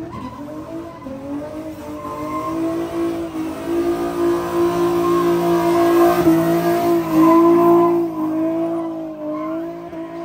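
A car engine held at high revs with tyres squealing and skidding, as in a drift or donut. The engine note wavers slightly, swells to its loudest about six to eight seconds in, then eases off.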